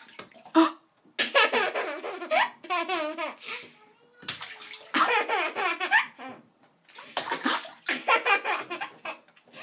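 A toddler laughing loudly in about four bouts, his voice high and wavering, with bathwater splashing around him.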